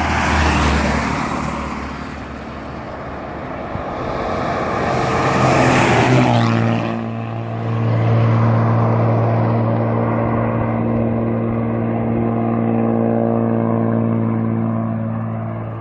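Hino bus diesel engine running close by. For the first six seconds there is a loud rushing noise that swells, then the engine settles into a steady, even note.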